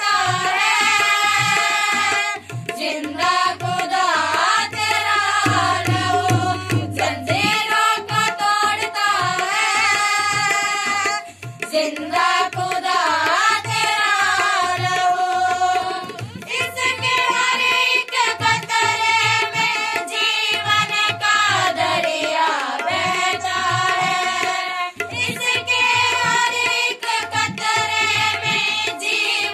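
Christian worship song with a melody and a steady hand-drum beat throughout.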